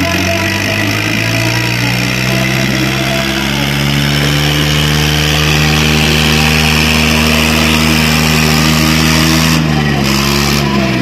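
Diesel tractor engine labouring at full throttle under heavy load, pulling against another tractor chained to it in a tug-of-war. The pitch holds steady, then falls near the end as the engine is pulled down.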